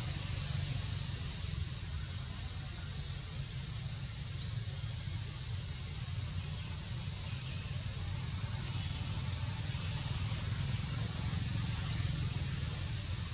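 Steady outdoor background: a low rumble under a faint hiss, with about a dozen short, high, rising chirps scattered through it.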